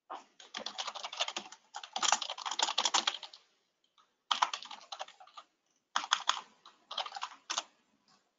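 Fast typing on a computer keyboard: three runs of rapid keystroke clicks separated by pauses of about a second.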